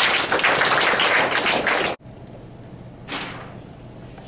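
Loud scraping and crackling of a clip-on lapel microphone being handled and unclipped from a shirt, cut off abruptly about two seconds in. A short, softer rustle follows about a second later.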